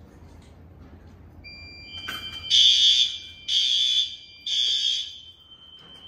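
Fire alarm horn sounding three loud blasts about a second apart, the three-pulse evacuation pattern, with a fainter steady high tone starting just before and lingering after.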